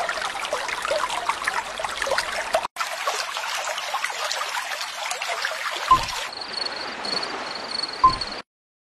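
Trickling, babbling water, broken for an instant a little before a third of the way in. From about two-thirds in a faint high pulsing chirp runs over it, with two short thumps, and the sound stops abruptly shortly before the end.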